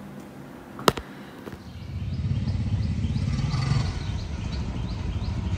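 A sharp click about a second in, then a steady low rumbling outdoor noise with a short high chirp repeating a few times a second.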